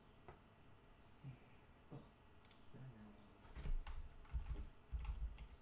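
Computer keyboard typing: a few scattered keystrokes, then a quick run of keystrokes in the second half.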